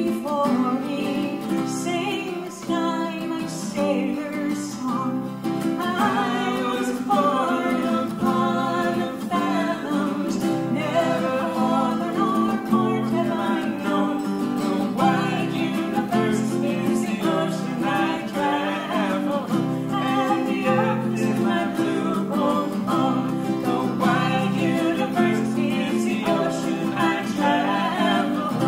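Acoustic guitar and ukulele playing a folk song together, with singing voices over the picked and strummed strings.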